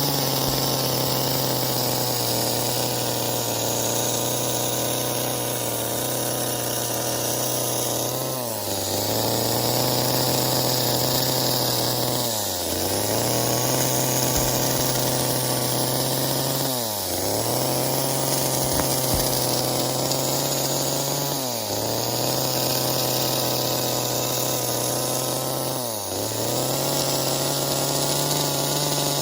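Chainsaw running at high revs while carving wood. The engine note dips briefly and recovers about every four to five seconds.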